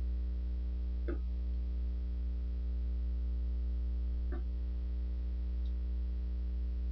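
Steady low electrical hum from the recording setup, with two brief, faint sounds, one about a second in and one about four seconds in.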